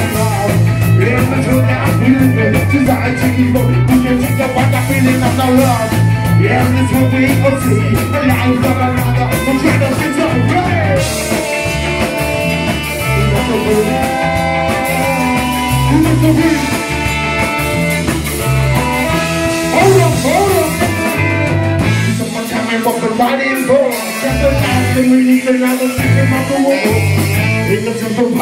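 A live band with a horn section playing loud, up-tempo music, with trombone, saxophone, electric guitar, drum kit and a singer. Sustained horn lines stand out in the middle, and the bass drops away briefly near the end.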